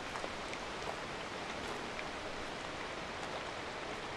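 Steady hiss of light rain, with faint scattered drips.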